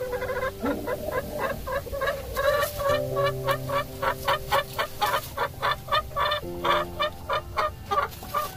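Rhode Island Red hen clucking in a rapid rhythmic series, about three clucks a second, while settled in a nest box.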